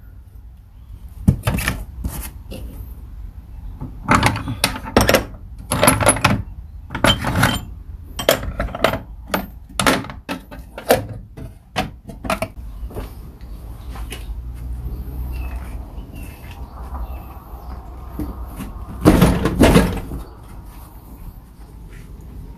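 Tools and stored gear being handled and moved about: a string of irregular knocks, clunks and clinks over the first dozen seconds. A louder burst of noise comes near the end.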